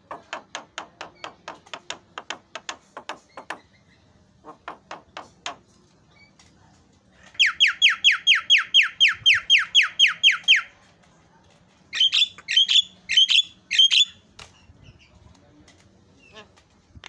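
Javan myna (jalak kebo) calling: first a run of quick clicking notes at about five a second, then a loud, rapid series of downward-sweeping whistled notes at the same pace, ending in a few harsh, scratchy notes.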